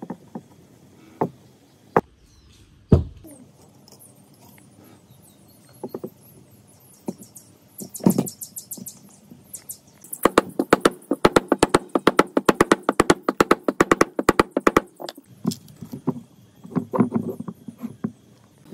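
Workshop tool sounds: a few separate sharp knocks, then a fast run of taps or clicks, about ten a second, for several seconds in the middle, followed by more scattered knocks.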